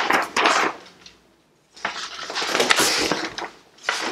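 A large folded paper poster being unfolded and shaken out, its paper rustling in two bouts with a short pause about a second in.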